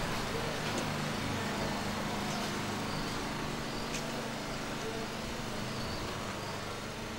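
Street ambience: a steady low rumble of distant traffic, with a few faint clicks.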